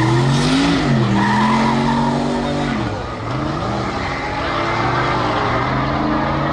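Whipple-supercharged Ford F-150 engine running hard under load, its pitch climbing then dropping sharply just before a second in, and dipping and climbing again near three seconds in.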